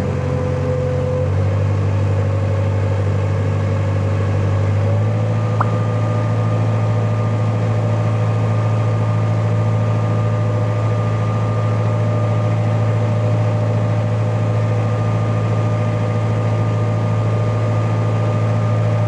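Fishing boat's engine running steadily while under way, a deep drone that shifts slightly in pitch about one second and five seconds in.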